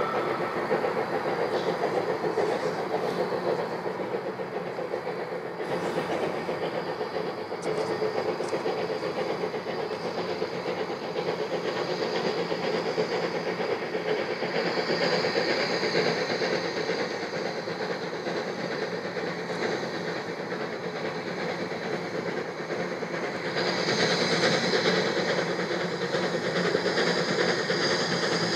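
Peckett saddle tank steam locomotive working a two-coach train at a distance: a steady rumble from its exhaust and running gear, which grows louder with more hiss near the end as the engine draws nearer.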